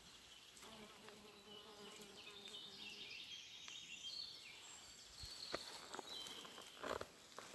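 Faint buzzing of flies and mosquitoes swarming at a fox den's prey remains and droppings, with a few soft knocks in the second half.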